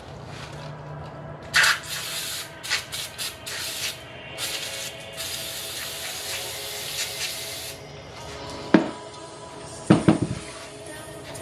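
Aerosol cleaner hissing from a spray can onto a go-kart clutch's shoes: a few short bursts, then a longer spray of two to three seconds. A few sharp knocks follow near the end.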